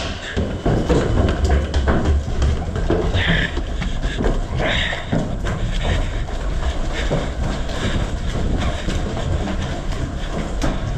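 Movement noise on a body-worn camera: a steady low rumble with a rapid patter of clicks and clatter from footsteps and carried gear as the player moves through the building.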